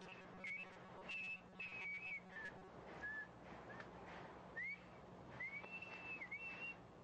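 A man whistling faintly: a string of short notes with gaps between them, some held and some sliding upward, over a low steady hum.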